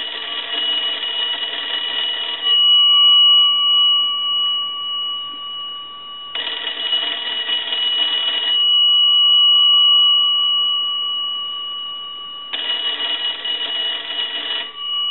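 The twin bell gongs of a Kellogg wooden wall telephone ringing in three bursts of about two seconds each, about four seconds apart, in the cadence of an incoming call sent by a line analyzer. A steady ringing tone carries on between bursts.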